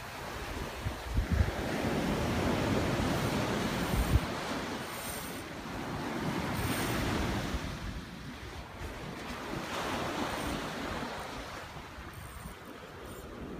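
Ocean surf breaking and washing up a sand beach, rising and falling in slow swells, with wind buffeting the microphone; two low thumps, one about a second in and one around four seconds.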